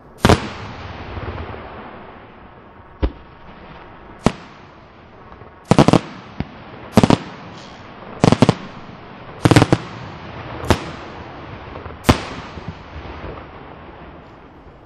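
Aerial firework shells bursting: about nine sharp bangs a second or so apart, some in quick doubles, each trailing off in a rolling echo. The loudest come near the start and in the middle, and the last is about twelve seconds in.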